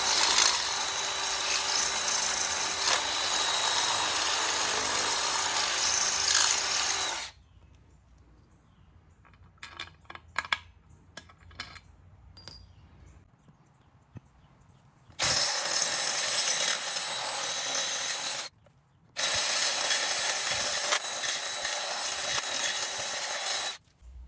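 Power drill drilling out a hole, running in three steady bursts: one of about seven seconds, then after a pause of light clicks and handling noise, one of about three seconds and one of about five seconds.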